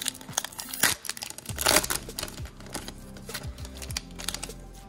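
Foil booster-pack wrapper crinkling and tearing open, with sharp crackles and the loudest rip a little under two seconds in.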